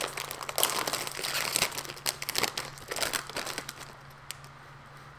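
Bag of Flamin' Hot Cheetos being pulled open and handled, its plastic crinkling loudly for about the first three and a half seconds, then only a few faint rustles.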